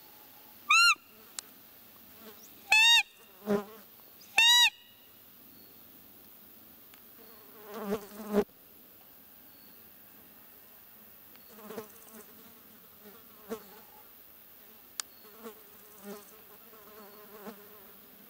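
Roe deer call blown three times in the first five seconds: loud, short, high squeaks that rise and fall in pitch, imitating a doe's fiep to draw in a rutting roe buck. A fly then buzzes past the microphone about eight seconds in, with fainter insect buzzing after.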